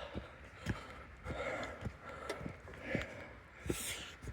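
A hiker breathing hard, out of breath from walking uphill, with soft footsteps on the trail about every half second.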